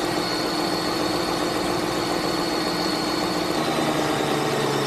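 2001 Lincoln Town Car's 4.6-litre Ford Modular V8 idling steadily on a freshly installed intake manifold, its note shifting lower about three and a half seconds in.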